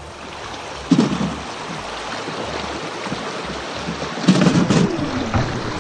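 Shallow river water rushing and splashing around a small boat drifting down a riffle. Low thumps about a second in and again past the fourth second, louder than the water.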